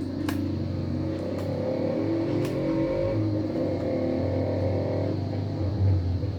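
A motor vehicle's engine running, with a low hum and wavering tones that ease off about five seconds in, and three light clicks early on.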